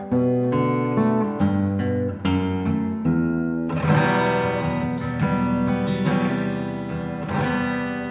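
Acoustic guitar music: single picked notes, giving way to fuller strummed chords about four seconds in.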